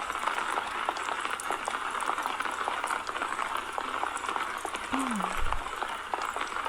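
Steady rain falling, a continuous hiss dotted with many small drop ticks.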